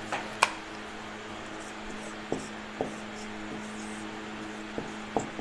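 Whiteboard marker being handled and written with on a whiteboard: a few light clicks and taps and faint scratching strokes, over a steady low electrical hum.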